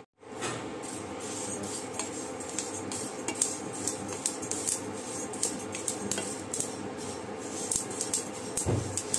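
Wooden spatula stirring sesame seeds as they dry-roast in a nonstick pan: a dry, rattling scrape of seeds with frequent light clicks, over a steady hum.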